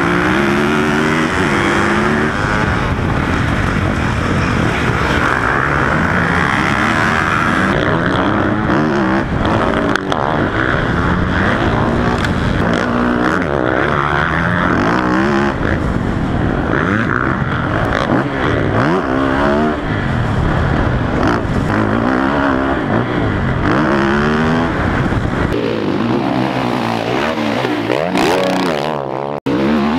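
Motocross bike engine at full throttle, heard from the bike itself, revving up and dropping back again and again as it shifts through the gears, with other race bikes around it. Just before the end the sound cuts briefly to bikes heard from trackside.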